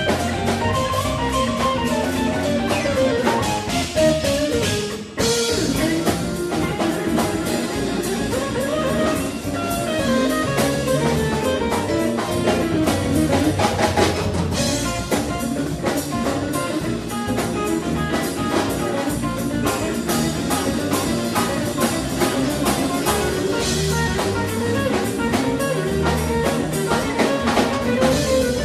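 Live band playing an instrumental funk-jazz tune: electric guitar over drum kit. The band stops short about five seconds in, then comes back in.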